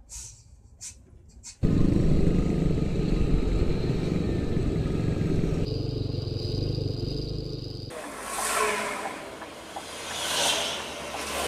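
A motor vehicle's engine, loud and starting suddenly about a second and a half in, running for about six seconds. It then gives way to quieter vehicle noise with two brief swells.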